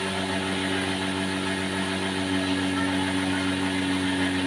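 Battery-powered cotton candy machine running, its spinning head giving a steady mechanical hum.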